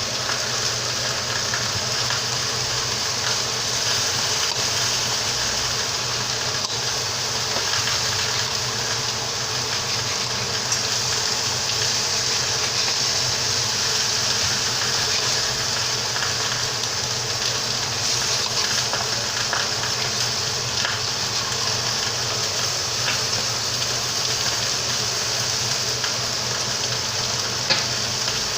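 Steaks and onion frying in a pan of canola oil: a steady sizzle with scattered small crackles.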